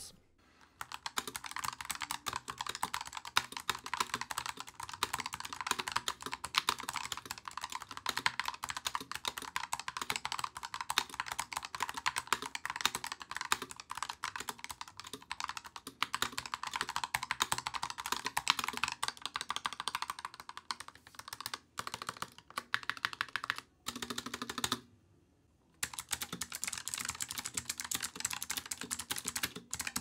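Fast, continuous typing on a Bloody B945 keyboard with Bloody's optical Light Strike (LK) switches. The linear switches are heard first; after a brief silence about 25 seconds in come the clicky switches, sharper and brighter.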